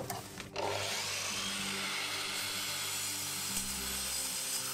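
Sliding miter saw starting about half a second in and running steadily as its blade crosscuts a bundle of thin wooden strips into small cubes. Its low hum shifts lower about three and a half seconds in.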